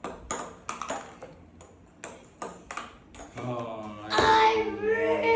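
Table tennis rally: the ball clicks sharply and irregularly off paddles and table, about a dozen hits over three seconds. A loud voice follows near the end.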